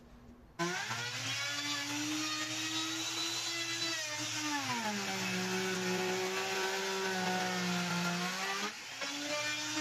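Handheld electric router starting up and running a profile along the edge of a pine cabinet door. Its motor whine climbs to speed about half a second in, drops in pitch around the middle while the bit is loaded in the wood, and rises again near the end.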